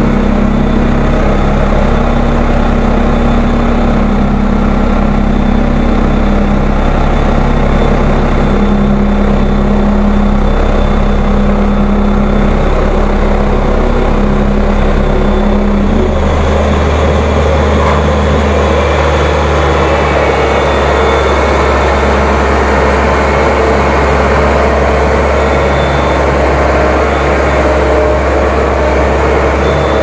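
Case 1107 EX single-drum road roller's diesel engine running loud and steady as the machine is driven, heard from the operator's seat. Its low note shifts about sixteen seconds in.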